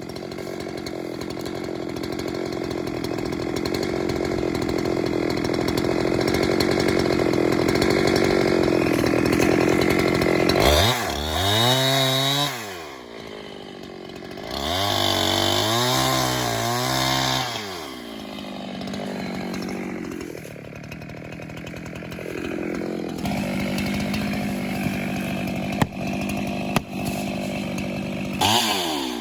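Chainsaw running under load while cutting timber for posts, then revving up and down twice with a drop to idle between, before settling back into steady running under load.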